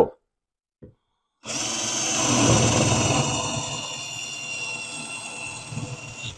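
Cordless drill boring a spade bit through thick fire-rated drywall. It starts about a second and a half in and runs with a high motor whine that drops a little in pitch as the drilling goes on.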